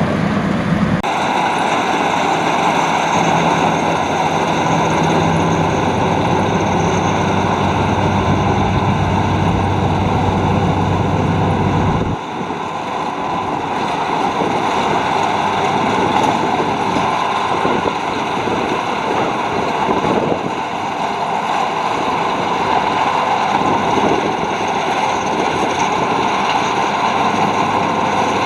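Luvol RD18 rice combine harvester running steadily, its engine and threshing machinery making a dense hum of several steady tones over a broad mechanical noise. The sound changes abruptly about a second in and again about twelve seconds in, where the deep rumble drops away.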